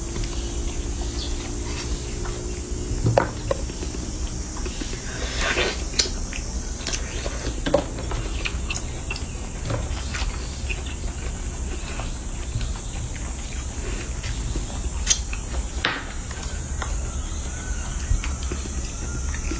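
A steady, high insect drone in the background, with scattered sharp clicks and crackles of longan shells being cracked and handled while a baby macaque eats.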